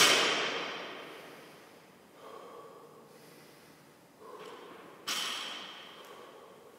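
Echo of a barbell with bumper plates dropped on a rubber gym floor, dying away over the first second or so, then an athlete's heavy breathing as he rests between lifts. There are loud exhales about two and four seconds in and a sharper one about five seconds in.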